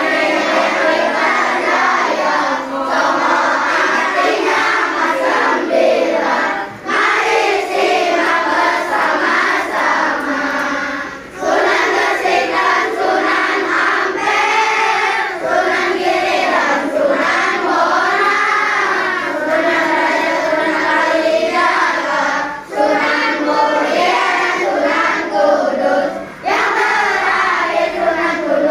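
A class of children singing together in unison, with short pauses between lines.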